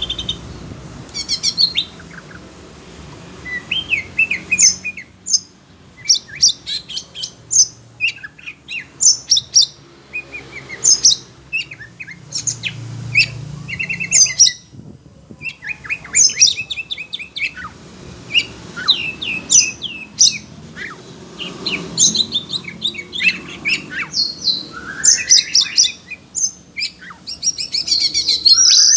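Oriental magpie-robin singing a loud, varied song of rapid chirps, whistles and trills in short bursts, with a few rising whistled glides. The song is the bird's excited response to another bird's calls.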